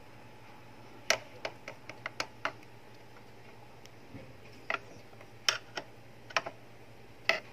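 Irregular sharp clicks and taps of a screwdriver working the plastic stopper and print-head carriage inside an opened Epson L120 inkjet printer, pushing to free the print head from its capping station.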